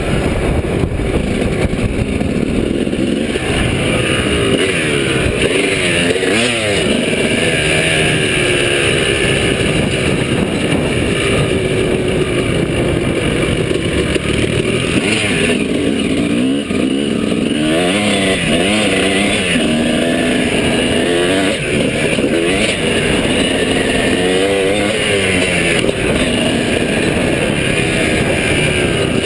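Dirt bike engine under hard riding, revving up and dropping back again and again as the rider throttles and shifts through corners and straights.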